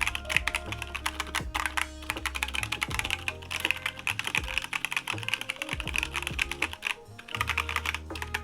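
Fast typing on a Monsgeek M5 mechanical keyboard fitted with Gateron North Pole 2.0 tactile switches: a dense run of key clacks, with brief pauses about five and a half seconds in and again around seven seconds. Background music plays underneath.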